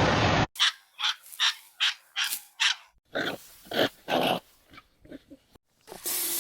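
A dog barking in a quick series of short barks, about two or three a second, after a brief loud burst of noise at the start. A loud hiss with a low hum comes in near the end.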